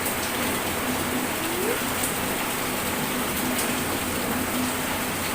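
Heavy rain falling, a steady hiss of rain on surfaces.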